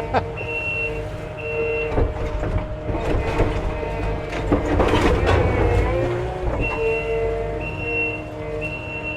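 Kubota skid steer's diesel engine running while its backup alarm beeps about once a second. From about 2 s to 6.5 s the beeping stops and knocking and clattering of wood and debris being moved takes over, then the backup alarm starts again.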